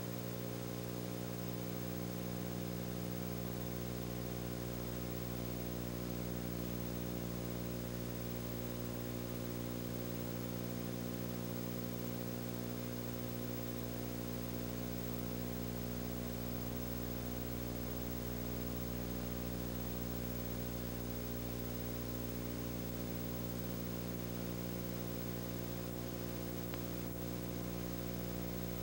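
Steady electrical hum with a constant background hiss, unchanging throughout, on the soundtrack of a silent home-movie transfer.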